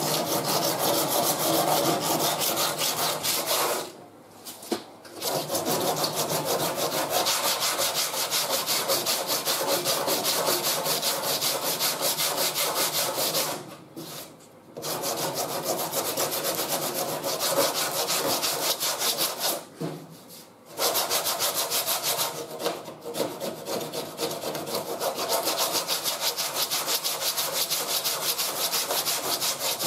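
Hand block-sanding of hardened fibreglass-reinforced body filler with 40-grit paper on a rubber block: a scratchy scrubbing of quick back-and-forth strokes. The strokes stop briefly three times, about 4, 14 and 20 seconds in.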